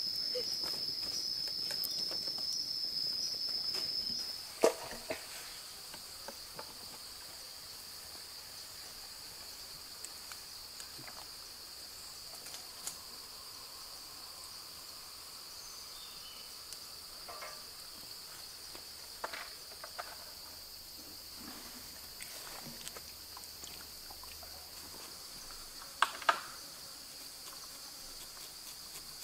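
Forest insects shrilling in a steady high-pitched drone, louder for the first four seconds and then fainter. A few sharp knocks and clicks stand out, one just after the drone drops and a quick double knock near the end.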